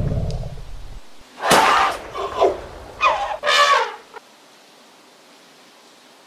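Elephant trumpeting in harsh, loud blasts: one about a second and a half in, then a pair around three seconds in. A low rumbling sound fades away in the first second.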